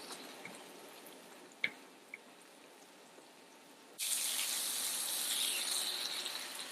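Salmon and red onions sizzling in a hot pan, with two sharp taps of a utensil about a second and a half in; about four seconds in the sizzle suddenly gets much louder.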